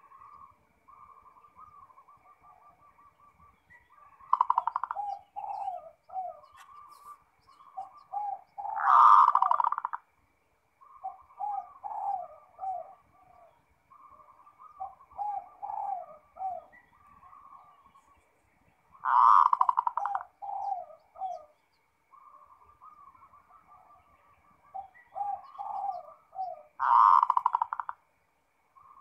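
Zebra dove (perkutut) singing. Soft rolling coos lead into a run of short, clipped notes, and each phrase ends in a louder, drawn-out coo. Three phrases come roughly every ten seconds.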